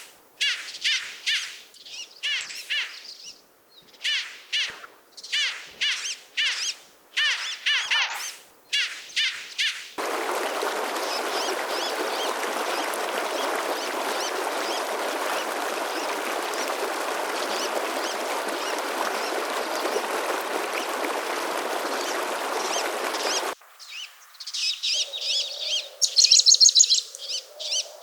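Small birds chirping in quick repeated phrases for about ten seconds. This cuts abruptly to a steady rush of mountain stream water. Near the end it cuts back to bird chirps over a faint low hum.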